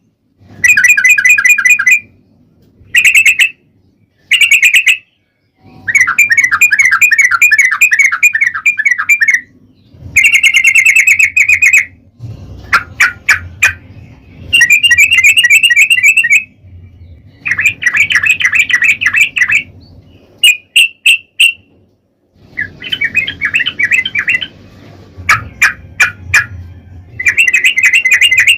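Yellow-vented bulbul (trucukan) singing: loud phrases of rapid, bubbling, trilled notes, each lasting one to three seconds, with short pauses and a few single sharp notes between them.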